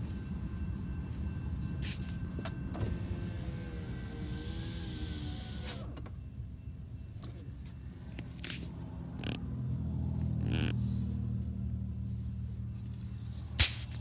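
Car engine and road noise heard from inside the moving car, a steady low hum that swells around ten seconds in. A wavering tone sounds for a few seconds and cuts off abruptly about six seconds in, and there are a few light clicks.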